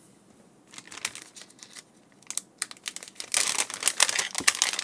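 Plastic bag holding a replacement circuit board crinkling as it is handled: a few scattered crackles at first, then dense, continuous crinkling for the last second and a half.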